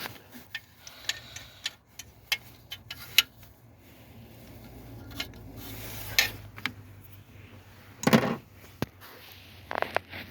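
Metal tools and parts clinking and knocking in irregular handling, with a louder knock about eight seconds in.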